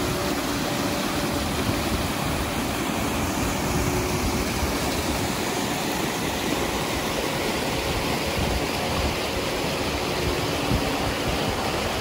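Steady, even rush of a fast-flowing mountain river.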